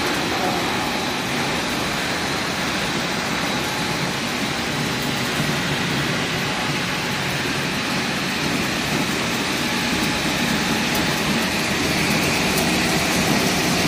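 Corn flakes processing line running: a steady mechanical din of motors, fans and conveyors, with a faint steady high whine.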